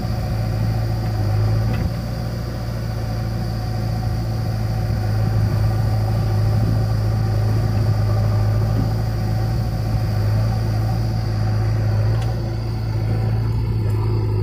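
Diesel engines of a JCB backhoe loader and a tractor running together with a steady low hum, while the backhoe's hydraulic arm loads soil into the tractor trolley.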